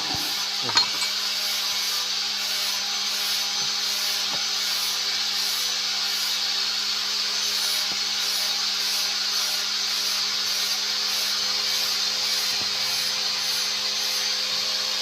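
A wood lathe running, its motor humming steadily under a steady hiss of the spinning workpiece being worked. There is a single short knock about a second in.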